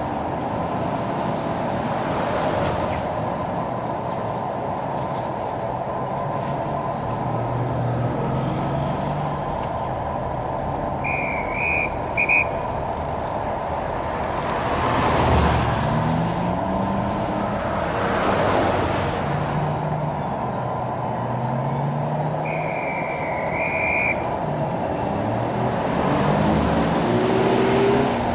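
City street traffic: a steady wash of engines and tyres, with vehicles passing every few seconds and some accelerating away with a rising engine note. Two brief high-pitched squeals come through, about a third of the way in and again past the middle.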